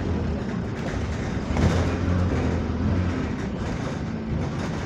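Bus engine running under way, heard from inside the passenger saloon: a low, moany engine drone over road noise. The drone swells about a second and a half in. The bus is said to be in limp mode.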